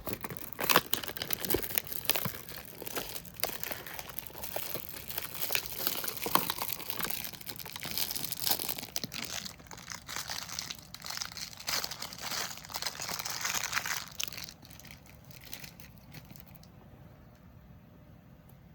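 Plastic packaging of a squishy toy crinkling as it is handled and opened, stopping about three-quarters of the way through.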